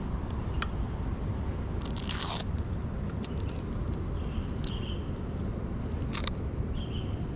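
Close handling noise from hands fitting the battery onto a GEPRC CineLog35 FPV drone: scattered plastic clicks, a short scraping rustle about two seconds in and another sharp crackle near the end, over a steady low rumble.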